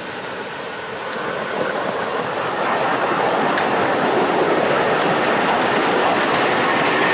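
Miniature park-railway steam train passing close by: a steady rumble of wheels on rail and the running gear, with light clicks, growing louder over the first three seconds as the locomotive draws level, then holding as the coaches roll past.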